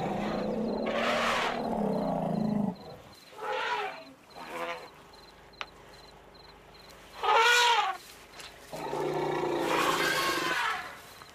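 A family of African elephants giving a series of loud calls with bending pitch: a long call at the start, two short ones after it, the loudest in the second half, and another long call near the end. This is the excited calling of the family around a newborn calf.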